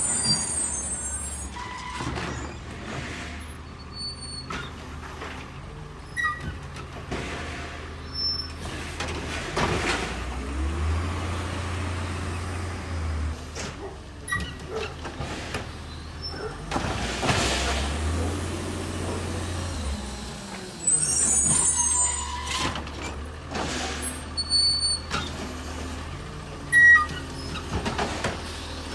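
Natural-gas (LNG) Labrie Automizer garbage truck at work: the engine runs steadily, revving up and dropping back twice, with hisses of air brakes. There are also scattered knocks and a couple of brief high squeals.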